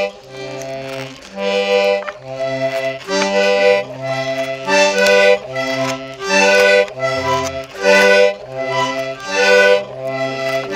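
Toy button accordion music: a simple tune of held reedy chords, the notes changing about once a second over a steady low note.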